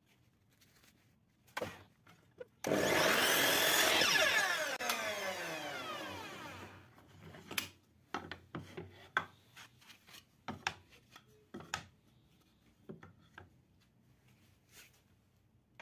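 Einhell compound miter saw switched on with a sudden start, cutting through a thin wooden board, then winding down over about two seconds after release. Afterwards there are scattered short knocks as the cut wooden pieces are handled on the saw table.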